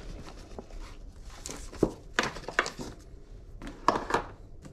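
Paper flour bag crinkling in several short bursts as it is handled and flour is poured from it into a plastic bowl.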